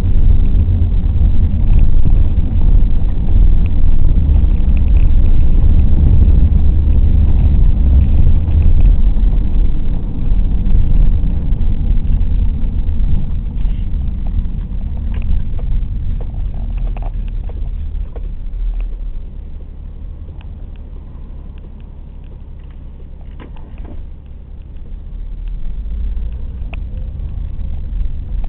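A car driving, heard from inside the cabin: a steady low rumble of engine and road noise. It is loud for the first ten seconds or so, eases off to a quieter run about two-thirds of the way through, and builds again near the end.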